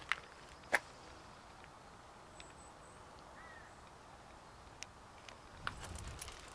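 Quiet outdoor background with two sharp clicks in the first second, a faint short bird chirp about halfway through, and a brief low rumble near the end.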